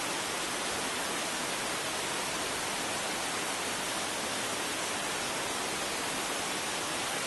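Steady rush of a waterfall, an even hiss of falling water with no change throughout.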